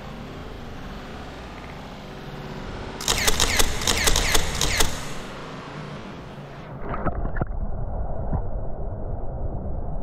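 Handling noise on a GoPro action camera, over a steady rushing background: a burst of rapid clicks and crackles about three seconds in, lasting about two seconds. Later the sound turns dull and muffled, a low rumble with a few clicks.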